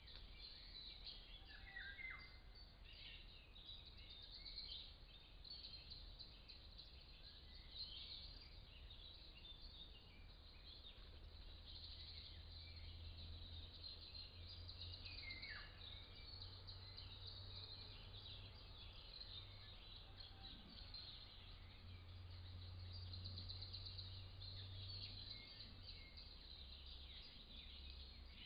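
Faint woodland birdsong: many small birds chirping and trilling, with a couple of down-slurred calls, over a low steady hum.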